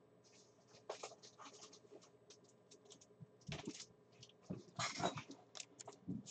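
Trading card packs being handled: faint, irregular light clicks and rustles, busiest about three and a half and five seconds in.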